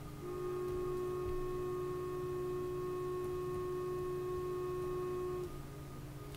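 A single steady tone held at one pitch for about five seconds, then cut off abruptly.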